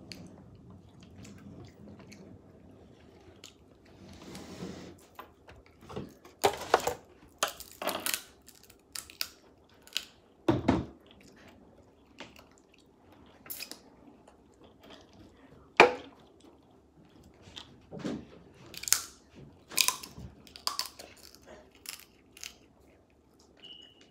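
Close-up eating of crab clusters: chewing, with irregular sharp clicks and crackles as crab shell is broken and picked apart. The first few seconds are quieter, and the crackling picks up about six seconds in.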